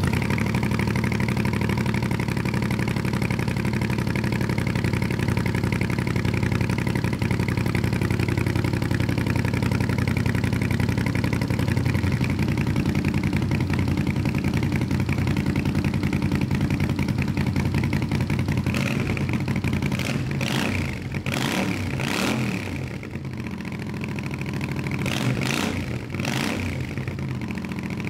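1980 Honda CX500's liquid-cooled 90-degree V-twin, just started, idling steadily through its cut-down stock headers and aftermarket Emgo mufflers. Past the midpoint it is blipped several times in quick succession, each rev rising and dropping back to idle, with the sound bouncing off a nearby fence.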